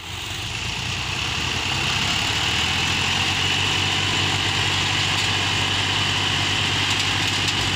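Tractor diesel engine running steadily under heavy load, straining to pull a stuck, loaded trolley while its rear tyres spin in dry dirt.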